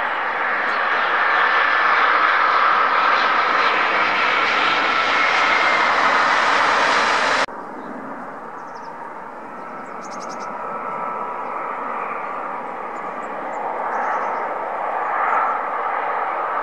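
Jet airliners landing. A Boeing 787's engines give a steady loud rush with a whine that slowly falls in pitch, cut off suddenly about seven seconds in. Then an Airbus A330's engines on final approach, quieter at first and growing louder as it nears touchdown.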